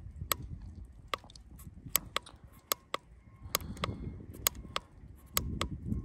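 A string of sharp, irregularly spaced clicks, about two a second, from the buttons of a handheld digital battery tester being pressed to set the battery's cold-cranking-amp rating before a test, over a low rumble.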